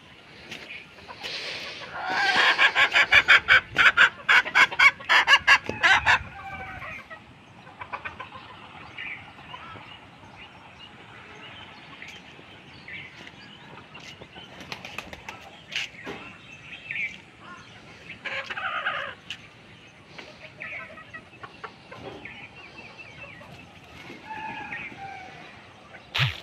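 Domestic chickens: starting about two seconds in, a loud, rapid flurry of squawks and wing-flaps lasting some four seconds, then softer scattered clucks and chirps.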